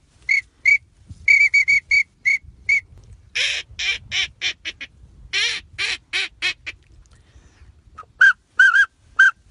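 A man imitating wild duck calls by mouth with his fingers at his lips. It starts with a run of short, high whistled notes of a teal call. From about three and a half seconds in comes a quick string of longer, rougher calls made through a cupped hand, and near the end a few lower whistled notes.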